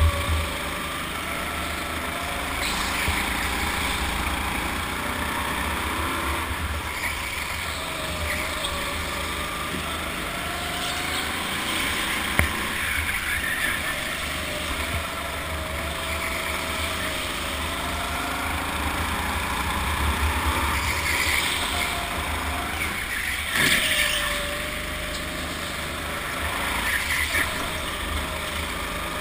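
Go-kart lapping an indoor track, heard from on board: a motor note that rises and falls with speed over steady rumble and wind rush, with louder noisy swells about twenty-one and twenty-four seconds in.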